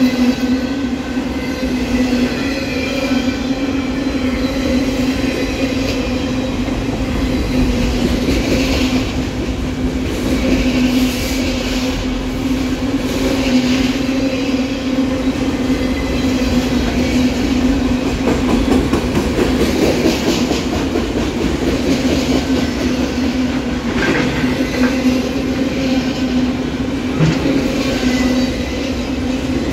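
Autorack freight cars rolling past: a steady rumble of steel wheels on rail with a constant low hum and a few clacks.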